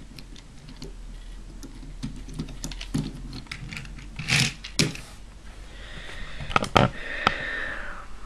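Clicks and taps of a plastic and die-cast Transformers Tracks toy being handled and set down on a wooden table, with a short scrape about four seconds in and a few louder knocks later on.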